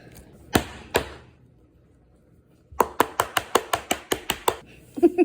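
Two sharp clicks, a short pause, then a quick, even run of sharp taps on a hard object, about seven a second.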